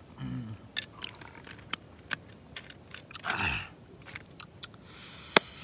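A man drinking from a bamboo cup: scattered small gulping and mouth clicks, with a short vocal "ahh" just after the start and a drawn-out breathy exhale falling in pitch around three seconds in. A sharper single click comes near the end.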